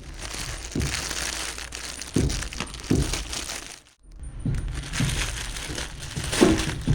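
Packaging crinkling and rustling as it is handled and opened, with several soft knocks and a brief break about four seconds in.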